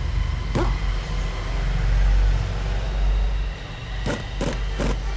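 Pneumatic impact wrench tightening the nut on a motorcycle's one-way starter clutch bearing, firing in three short bursts near the end, over a steady low hum.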